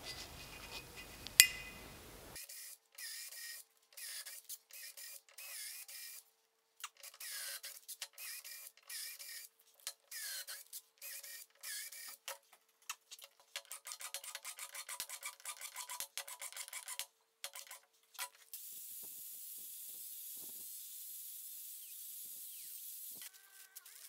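A cordless drill boring small holes into an aluminium cube: a run of short drilling bursts with brief pauses between them, the bit scraping and squealing through the metal, then a steadier hiss for a few seconds near the end.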